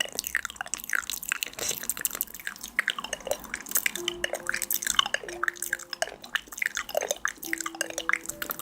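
Close-miked wet clicks and pops, a few each second. From about four seconds in, faint held low tones come and go beneath them.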